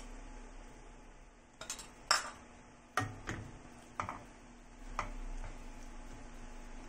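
A plastic spoon stirring beef and sauce in a wok, with a knock or scrape against the pan about once a second. The stirring works cornstarch slurry in to thicken the sauce.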